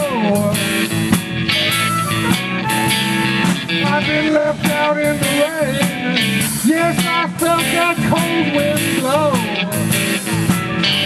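Blues band playing live: electric guitar, bass and drum kit, with a lead line bending in pitch over the top. Near the end the frontman plays harmonica cupped against the vocal mic.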